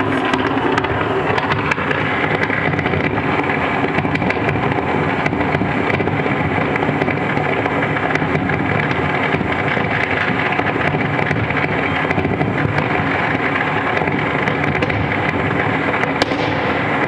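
Fireworks and firecrackers going off all over a city in a continuous barrage, countless small bangs and crackles merging into one steady din.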